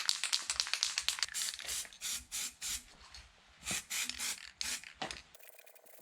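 Aerosol can of heat-resistant paint sprayed in many short hissing bursts, several a second, onto an exhaust part. It stops abruptly near the end, where a quieter steady hum takes over.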